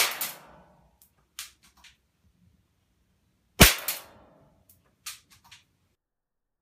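Two sharp cracks of a homemade compressed-air BB gun at 120 psi firing into a tempered-glass screen protector, about three and a half seconds apart. Each crack is followed by a few faint ticks.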